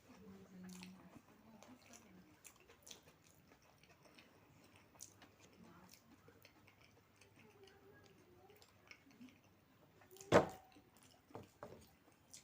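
A person chewing food quietly, with small scattered mouth and utensil clicks, and one sharp knock about ten seconds in, followed by a smaller one.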